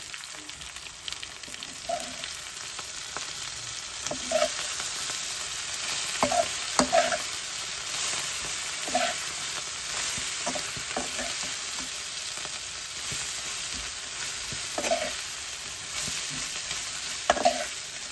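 Grasshoppers and chillies frying in oil in a steel kadai, a steady sizzle, while a metal spatula stirs them, scraping and clinking against the pan every second or two.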